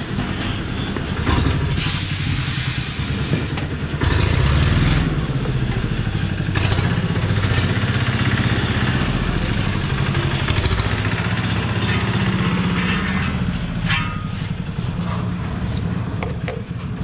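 An engine running steadily, its pitch rising for a moment about four seconds in. A loud burst of air hiss comes about two seconds in, and a lasting hiss continues from about four seconds.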